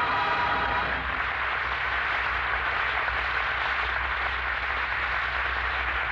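The end of an orchestral number, stopping about a second in, followed by steady applause from an audience.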